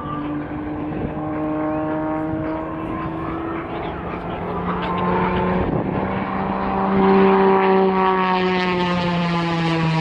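Extra 330SC aerobatic plane's six-cylinder Lycoming piston engine and propeller in flight: a steady multi-tone drone that grows louder to a peak about seven seconds in, then drops a little in pitch as the plane passes.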